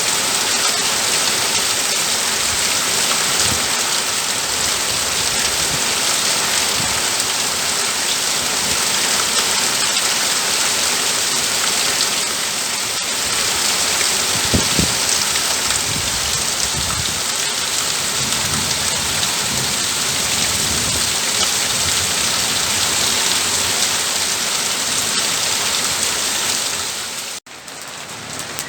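Steady heavy rain drumming on a roof, a dense even hiss, with a few low rumbles about halfway through. Near the end it cuts off abruptly and goes on at a much quieter level.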